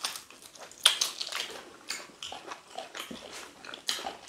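Close-up mouth sounds of two people eating chicken and fufu by hand: irregular wet smacks, clicks and chewing, several times a second.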